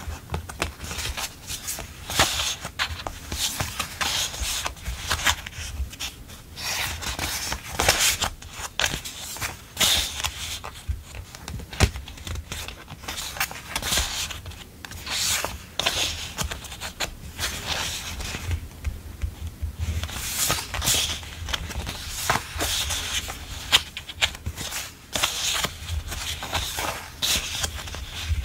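Sheets of thin printed memo-pad paper rustling and sliding over each other as a stack is leafed through by hand, in irregular strokes.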